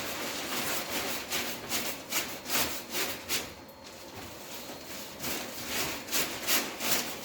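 Rapid back-and-forth scrubbing strokes, about two to three a second, as a part of a Taski Aero 15 vacuum cleaner is cleaned by hand; the strokes pause for about a second and a half a little past the middle, then start again.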